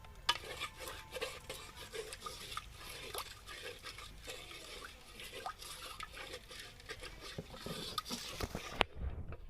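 Stirring in a cooking pan: a spatula scraping and clicking against the pan in quick, irregular strokes.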